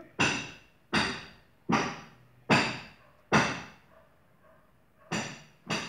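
A small spoon tapping sharply against hard kitchenware, each tap ringing briefly. There are five taps about 0.8 s apart, a pause, then two more near the end.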